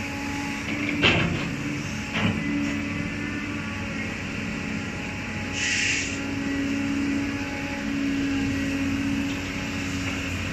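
Cat 320D excavator's diesel engine running steadily under hydraulic load while the bucket digs into mud. Two sharp metallic knocks come about a second apart near the start, and a short hiss comes about halfway through.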